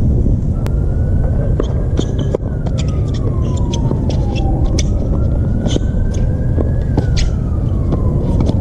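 A siren wails faintly, its pitch rising and falling slowly twice. Under it runs a steady low rumble, and tennis racquets strike the ball in sharp pops during a rally.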